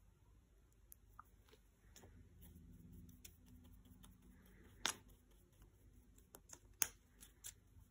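Quiet handling sounds of a plastic paint bottle and paintbrush over a sketchbook: scattered small clicks and taps, with two sharper clicks about five seconds in and again about two seconds later.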